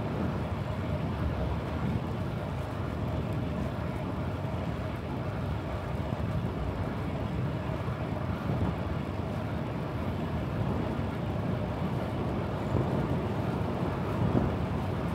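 Wind buffeting a chest-mounted camera's microphone while riding a bicycle, over a steady rumble of road noise.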